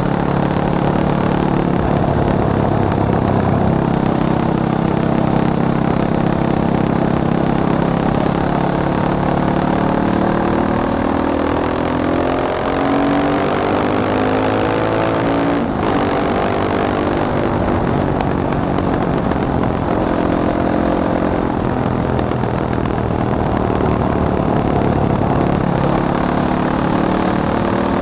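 Fantic Caballero 500 motorcycle's single-cylinder four-stroke engine running, its revs rising and falling, with a brief dip about halfway through.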